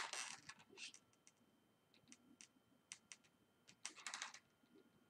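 Faint short scratchy strokes and light clicks of a marker pen drawing on an inflated latex balloon, a few separate strokes with a small cluster near the end.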